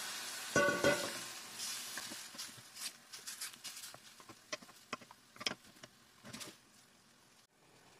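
Chicken sizzling in gravy in a stainless-steel frying pan while it is stirred and turned, with one loud clank against the pan and a short ring about half a second in. The sizzle fades to scattered small pops and clicks, then cuts off suddenly near the end.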